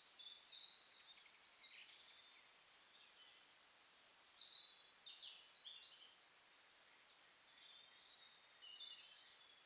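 Faint songbirds singing, with high-pitched chirping and trilling phrases and a quick falling note about five seconds in, over a steady hiss.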